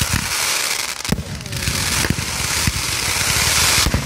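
A ground-launched firework fires gold comet tails with a steady loud hissing rush. A new volley goes off about once a second with a sharp crack, under a scatter of crackling pops.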